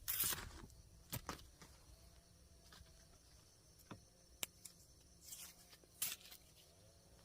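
Faint, scattered rustles and sharp clicks, about six of them spread irregularly, from handling and movement.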